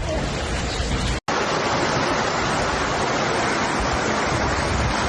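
Steady rushing noise of water, such as floodwater flowing or heavy rain. It cuts out abruptly about a second in and a similar rush resumes at once.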